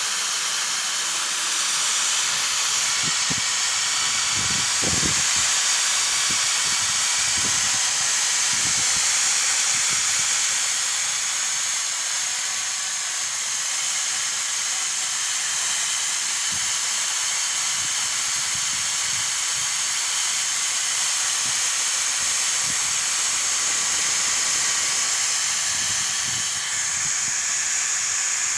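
Electric drill in a bench-drill stand running at a steady set speed, a high whine with hiss, as the bit is fed slowly down to cut into the workpiece.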